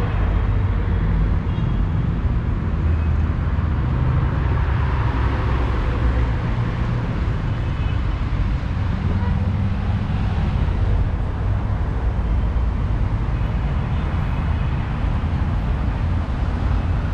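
Steady road traffic from a busy avenue alongside: a continuous wash of car engine and tyre noise, heaviest in the low end.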